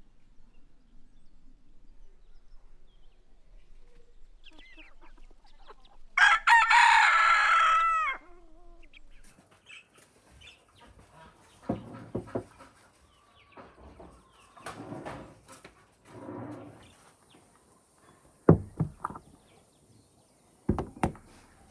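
A rooster crows once, a loud call of about two seconds starting about six seconds in. Quieter scattered sounds and a few sharp knocks follow later.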